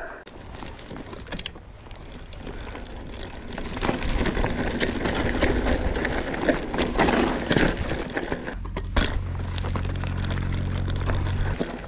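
Mountain bike rolling fast down a gravel and dirt trail: knobby tyres crunching over loose gravel, with small clicks and rattles from the bike. It gets louder about four seconds in, and a steady low hum comes in near the end.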